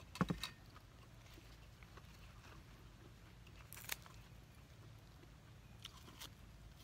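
A man eating: biting and chewing, with a few short sharp clicks just after the start as a spoon works on an enamel plate. There is another short sharp sound a little before four seconds in as he handles fresh leafy greens, and a fainter one around six seconds.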